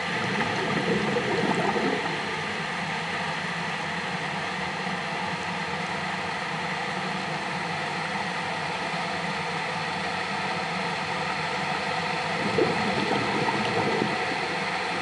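Underwater recording: a steady mechanical hum with water gurgling and bubbling over it. The bubbling swells louder about a second in and again near the end.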